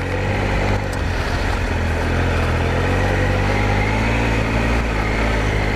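Triumph Explorer adventure motorcycle's three-cylinder engine running steadily under way, its pitch holding nearly even.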